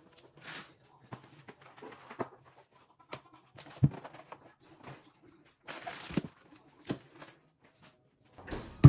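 Grocery packages and plastic food containers being picked up and set down on a kitchen counter: scattered light knocks and clatters with a short rustle of plastic packaging, and sharper knocks about four seconds in and near the end.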